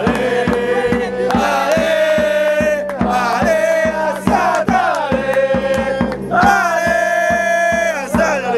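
Background music: a song with chant-like sung voices holding long notes over a steady drum beat.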